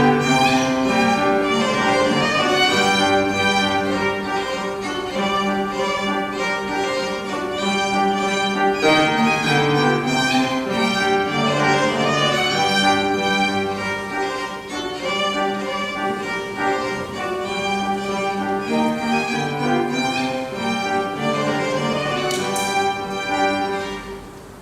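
Piano trio playing: violin and cello with piano, in sustained notes. The music dies away near the end.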